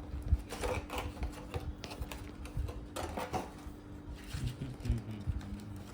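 Mechanical keyboard being typed on: irregular clicking keystrokes in short runs, over a faint steady hum.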